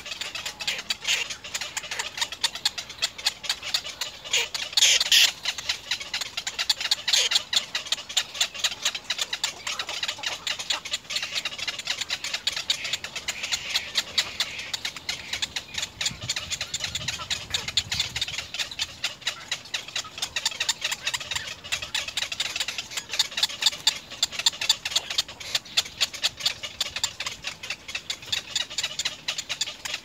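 Little egret chicks giving rapid ticking begging calls at the nest, a fast run of clicks that goes on throughout and swells a little now and then.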